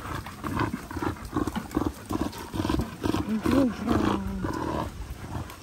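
Dogs play-growling as they wrestle, a quick run of short, rough growls, with a brief higher whine about three and a half seconds in.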